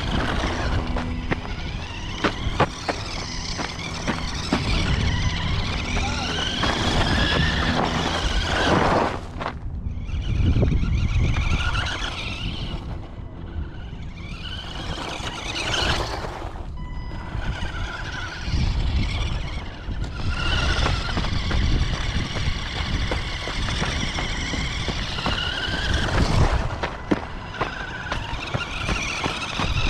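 1/18-scale Axial Yeti Jr Can-Am RC car driving: its electric motor and gears whine, rising in pitch again and again as it accelerates, over rumble from the tyres and chassis.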